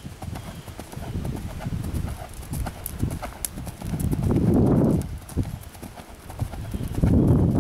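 Hoofbeats of a horse cantering on grass and dirt, a run of soft thuds and knocks, with a louder low rumble about four to five seconds in.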